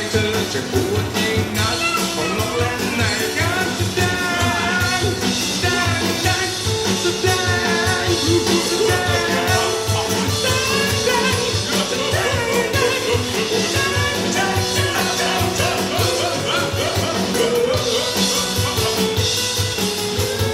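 A song with a singing voice over a steady drum beat, played back through Genesis Naptune GT65.2 component speakers in a car audio system, with no EQ and the set's original passive crossover.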